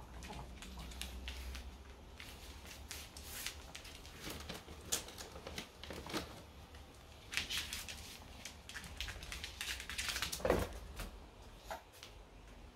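A Chihuahua's claws clicking and tapping on a laminate floor as it moves about, then one louder thump a little over ten seconds in as it gets up onto a bed.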